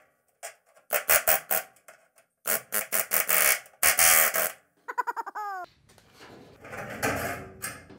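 Central Pneumatic air hammer with a chisel bit chattering against sheet metal in three short bursts, breaking drilled-out spot welds on a truck's cowl panel. A short falling squeal follows about five seconds in.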